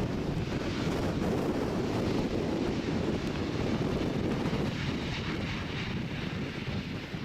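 Jet engine noise from a landing Boeing 767-300 freighter: a steady, heavy rumble with hiss above it, mixed with wind buffeting the microphone.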